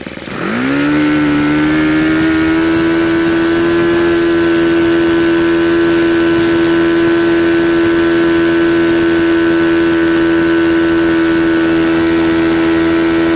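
YS FZ-63S supercharged four-stroke glow model engine swinging an APC 12x8 propeller, opened up from idle to its top end. The pitch climbs sharply within about a second, then holds a steady, loud, high-pitched drone at full throttle.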